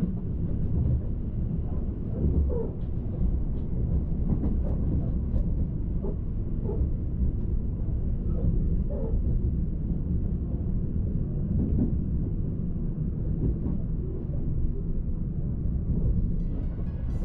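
Running noise of an E353-series Limited Express Azusa electric train heard from inside a passenger car: a steady low rumble of wheels on rail at speed, with faint soft knocks now and then.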